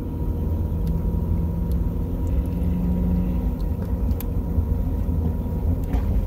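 Steady low rumble of a car, heard from inside the parked vehicle.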